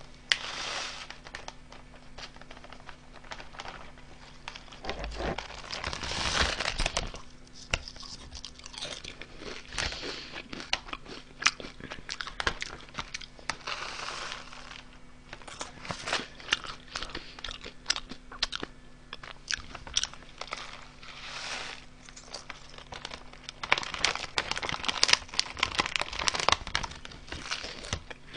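Honey Butter Chip potato chips crunched and chewed close to the microphone, with the foil chip bag crinkling now and then as it is tipped up to pour the last pieces into the mouth.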